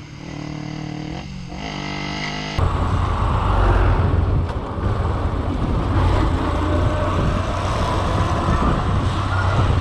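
Motorcycle riding heard from an on-bike camera: a steady engine note for about the first two and a half seconds, dipping briefly in pitch partway, then an abrupt change to a louder mix of motorcycle engine and road traffic with a heavy low rumble.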